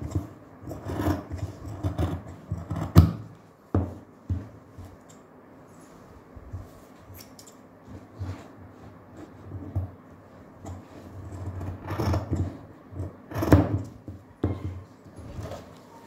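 Large steel tailor's shears snipping through folded fabric in irregular cuts, with the cloth rustling as it is turned. The snips come thickest in the first few seconds and again a few seconds before the end, with a quieter stretch between.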